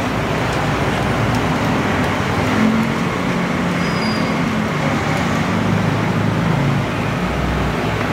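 Steady rushing background noise of a street-side food stall, with a low hum underneath and no distinct single sounds.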